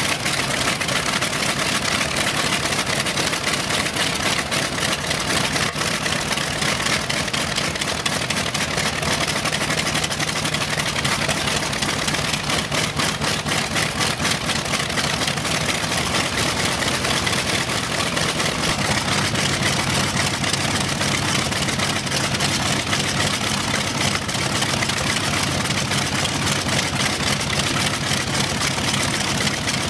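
Focke-Wulf Fw 190's radial piston engine running steadily at idle shortly after start-up, with the propeller turning. The engine note shifts slightly about two-thirds of the way through.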